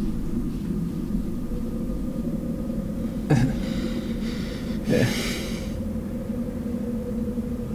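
A man snorting twice through his nose, about a second and a half apart, as a stifled laugh, over a steady low room hum.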